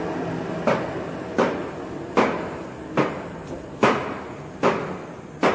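Thermal paper roll making machine running its automatic cutting cycle: a sharp knock about every 0.8 s, seven in all, over a steady machine hum that dies away.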